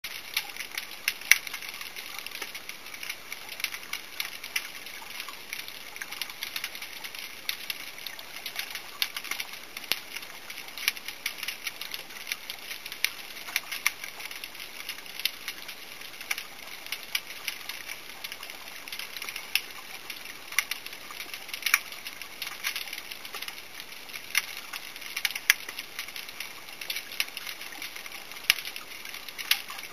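Underwater ambience in shallow coastal water: a continuous crackle of irregular sharp clicks, many a second, with scattered louder snaps.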